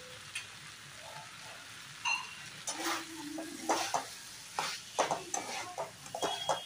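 A metal spatula stirs and scrapes fried moong dal and vegetables around a metal kadai while oil sizzles underneath. The scraping strokes start about two seconds in and come quickly and irregularly.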